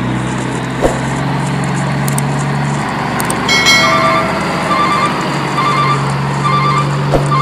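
A truck engine running steadily. About halfway through there is a brief loud blast, and then a reversing alarm beeps at an even pace, roughly once a second.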